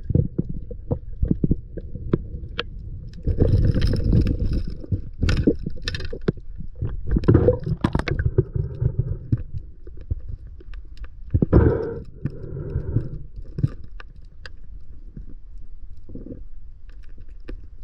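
Underwater sound picked up through an action camera's waterproof housing: a low muffled rumble of moving water with scattered sharp clicks, and three louder rushing bursts spread through the stretch.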